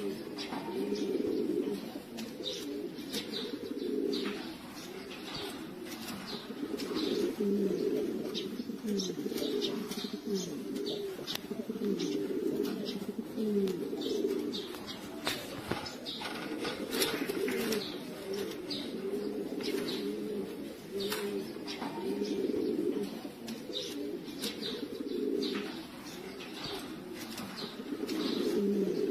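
Many domestic pigeons cooing over one another: a continuous low burbling with individual coos standing out now and then. Scattered short sharp clicks and taps run through it.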